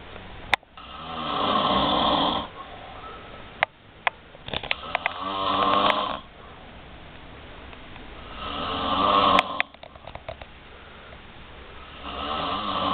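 A person snoring in deep sleep: four loud, rasping snores about every three and a half to four seconds, the second with a fluttering rattle. A few sharp clicks fall between the snores.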